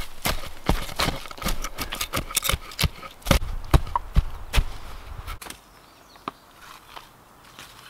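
Quick, irregular knocks and cracks of dry dead wood, with a few heavier thumps, stopping about five and a half seconds in.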